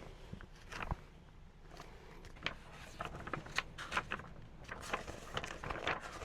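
Irregular light knocks, clicks and shuffling, like footsteps and things being handled, coming more often in the second half.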